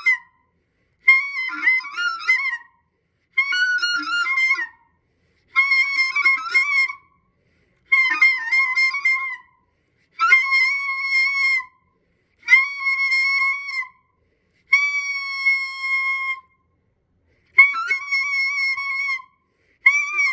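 High-register clarinet playing short phrases of about a second and a half, each followed by a brief silence, about nine in all. The early phrases move quickly between notes; the later ones hold steadier single notes, and one near the end of the run is a long held tone.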